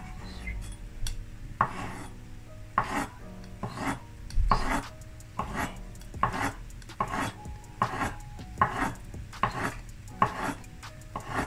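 Kitchen knife slicing an avocado quarter into thin slices on a wooden cutting board, each cut ending in a knock on the board, about one cut a second in an even rhythm.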